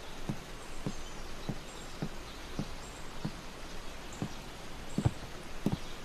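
Footsteps at an even walking pace, a little under two dull steps a second.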